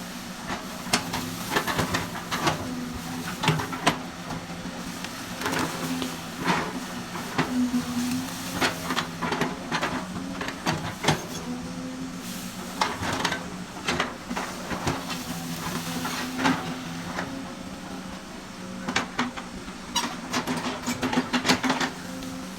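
Excavator engine running steadily, with irregular clanks and knocks from the machine working over the hum.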